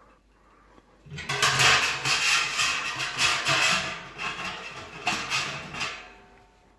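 Close handling noise from unpacking or fitting parts: a dense run of scraping and rustling that starts about a second in and fades near the end.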